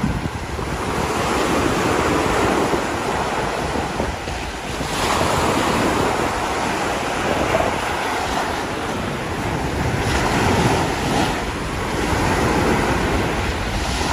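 Small waves breaking and washing onto a sandy beach, swelling every few seconds, with wind rumbling on the microphone.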